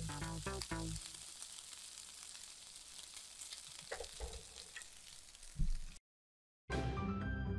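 Pork belly slices sizzling in their own fat in a frying pan, a steady hiss with small crackles. Background music fades out about a second in, and a short thump comes just before a brief silence, after which music starts again near the end.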